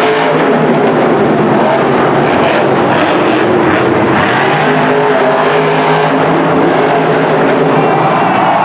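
Lucas Oil Crusader monster truck's supercharged V8 engine running loud, revving up and down as the truck jumps and drives over the dirt.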